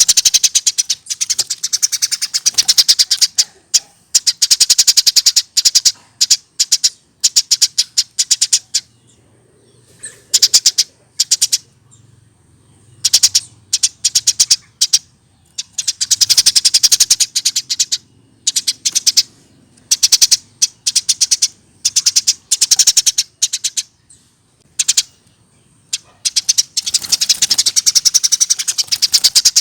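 Eurasian tree sparrow chirping in loud, rapid runs of repeated chirps, bout after bout with short pauses between.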